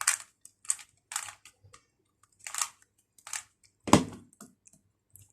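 Plastic Rubik's cube being twisted by hand, a series of short clicking rattles as its layers turn, with a louder clack about four seconds in.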